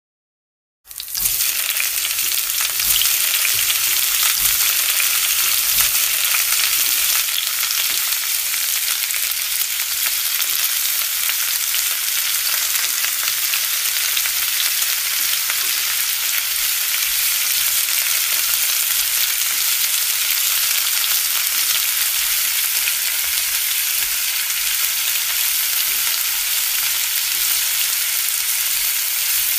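Hot oil in a frying pan starting to sizzle about a second in as the first wrapped roll is laid into it, then a loud, steady frying hiss as the rolls cook in the shallow oil.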